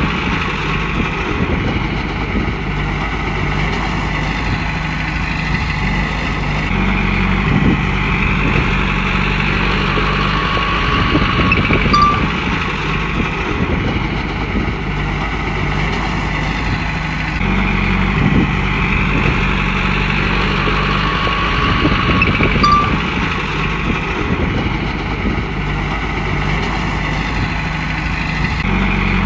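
Komatsu bulldozer's diesel engine running steadily, its pitch and load stepping up and down in a repeating work cycle about every ten seconds, with a whine that swells and fades along with it.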